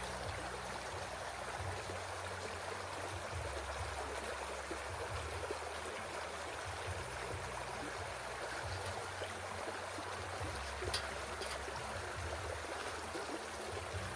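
Creek water running steadily, an even rushing hiss. A short click sounds about eleven seconds in.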